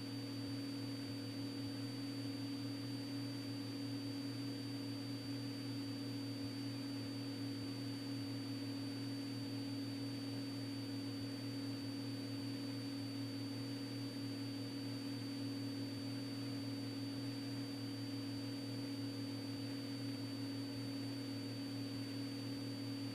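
Cessna 206 Stationair's engine and propeller giving a steady low drone in flight, with a faint thin high whine above it; it does not change.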